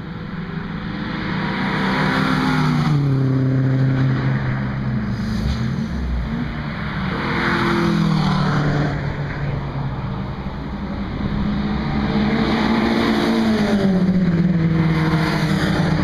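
Track cars driven hard past trackside one after another, engines revving. The engine notes swell and drop in pitch as each car goes by, several times over.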